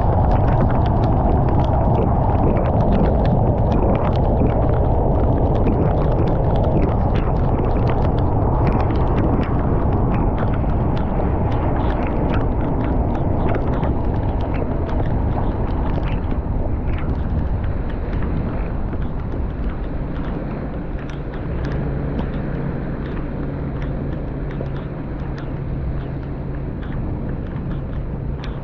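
Torrential rain beating on a moving car, with many small drop ticks over the dense rush of spray and tyres on the flooded road. It eases a little about two-thirds of the way through, and a steady low hum from the car comes through.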